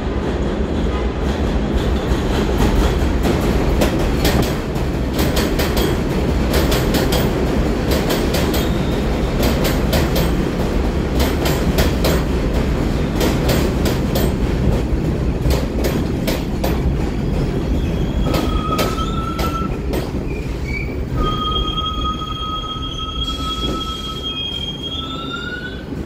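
R62 subway train running into a station: a heavy rumble with rapid, irregular wheel clacks over the rail joints. Over the last several seconds, as it slows to a stop, high steady squealing tones join in and glide upward just before it halts.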